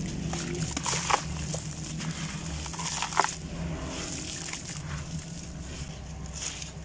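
Crumbly gravel-and-sand chunks crushed by hand, with gritty crunching as the crumbs shower and splash into a basin of water. A sharper crack comes about three seconds in.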